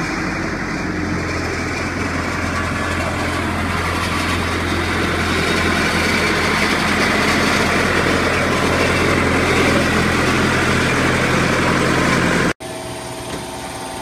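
Loader engine running steadily with a low, even hum; the sound cuts off suddenly near the end.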